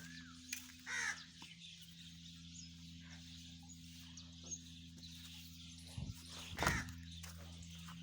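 Crow cawing, two calls: one about a second in and a louder one near the end, over a steady low hum.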